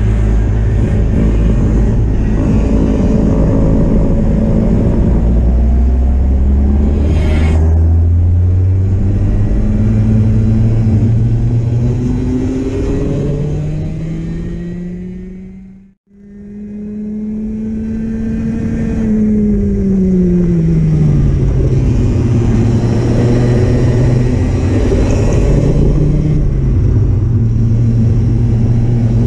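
Racing kart engine accelerating hard out of a slow corner, its pitch climbing steadily for about thirteen seconds. It fades out and back in at an edit about halfway through, then the pitch drops as the kart slows for a corner and rises again as it accelerates.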